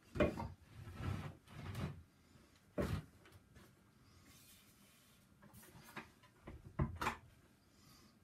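Pine wood block being shifted and set down on a drill press table: a series of separate knocks and scrapes, the loudest near the start, about three seconds in and around seven seconds.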